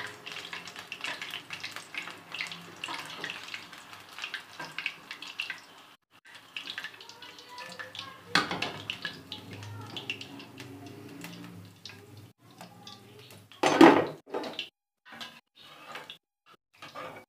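Kitchen handling sounds: wet sloshing and scraping with many small clicks of a bowl and utensils, and one loud knock about 14 seconds in.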